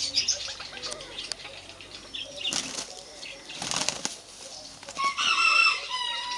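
Bird wings flapping in two short noisy bursts around the middle, then a loud pitched bird call lasting about a second near the end, among scattered small chirps.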